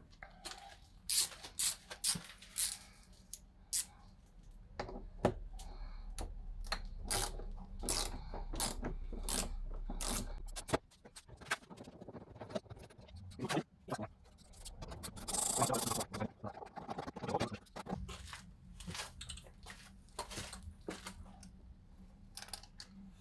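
Screwdriver with a Torx T30 bit working the screws out of a car door's plastic trim panel: irregular clicks and taps of metal on plastic, with a longer scraping rasp about fifteen seconds in.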